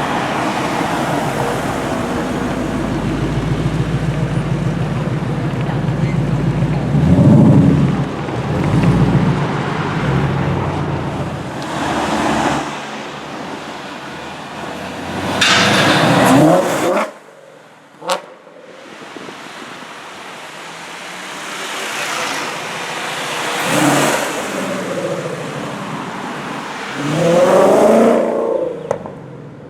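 Clive Sutton CS800 Ford Mustang GT's V8 engine running and revving, rising in several loud swells. The sound drops away suddenly about two-thirds of the way through, with a sharp click a second later.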